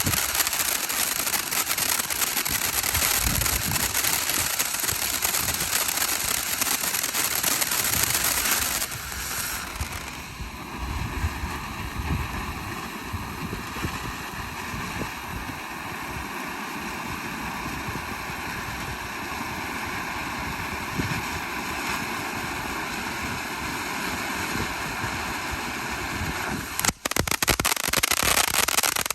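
500 gram consumer fountain firework spraying with a steady hissing rush. The rush drops in level about nine seconds in, and about 27 seconds in it turns to a rapid crackling.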